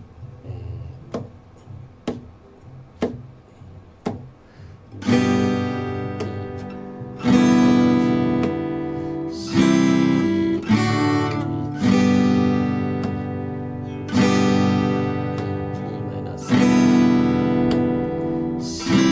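Steel-string acoustic guitar strummed in open chords, each chord struck once and left to ring, changing every one to two seconds. Before the strumming starts, about five seconds in, there are faint clicks about once a second.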